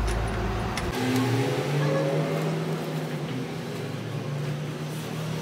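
A motor or engine running with a steady pitched hum. About a second in, the deep rumble cuts out abruptly and a steadier set of tones carries on, one of them rising slightly.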